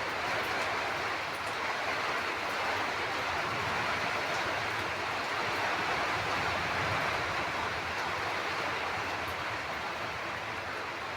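Steady rain falling: an even, unbroken hiss with faint scattered ticks of drops.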